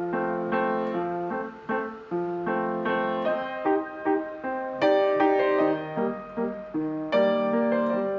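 Piano music: a melody of struck notes that start and fade one after another.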